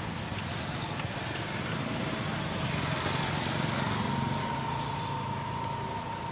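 Roadside street noise: a steady rumble of motorcycle and car traffic. A faint steady high hum comes in about four seconds in.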